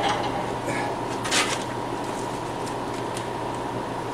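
Steady fan-like hum of shop equipment running, with a brief noise about a second and a half in.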